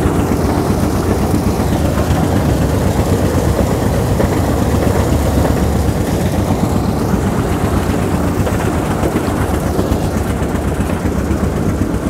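Carrot washing machine running: a loud, steady mechanical rumble that goes on without a break.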